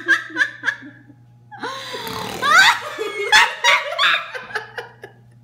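People laughing: a quick run of laughs at the start, then after a short pause a longer, breathier bout of laughter.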